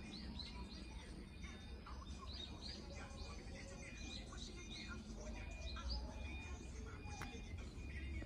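Small birds chirping, a quick series of short high calls repeating throughout, over a low steady rumble, with one sharp click near the end.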